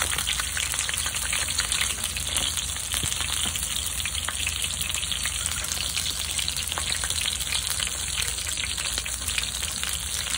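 Slices of Iberico pork belly, still partly frozen, frying on a hot griddle pan. They sizzle and spit hard, with a dense, steady crackle of fat spatter, because they went on frozen.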